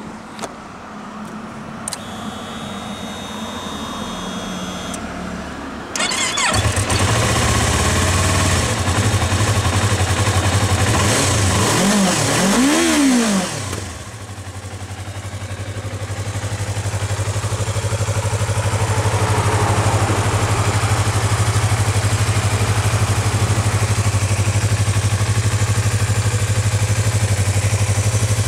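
Yamaha YZF-R25's 250 cc parallel-twin engine on its stock exhaust. After a brief faint whine, it starts about six seconds in and idles, is revved twice in quick succession around twelve seconds in, then settles back to a steady idle.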